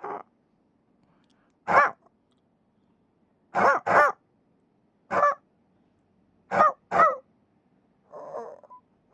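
An animal giving short, high-pitched calls every second or so, some in quick pairs of two.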